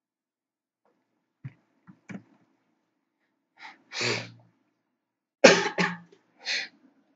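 A person coughing several times, the loudest cough about five and a half seconds in, after a few faint clicks.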